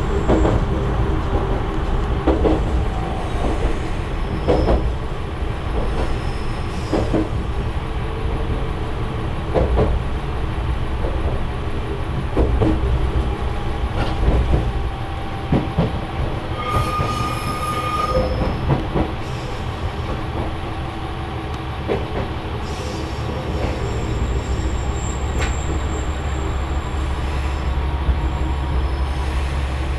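Amagi Railway diesel railcar running along jointed track, heard from the cab: a steady rumble of engine and wheels with a click at the rail joints every couple of seconds. A brief wheel squeal comes a little past halfway as the train takes the turnout into the passing loop, and a thin high squeal follows later as it draws into the loop.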